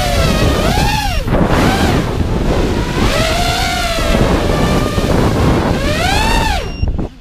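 FPV freestyle quadcopter's brushless motors whining, the pitch swinging up and down with the throttle, over wind rushing past the onboard camera. Near the end the sound drops away briefly as the throttle is chopped, then the motors spin back up.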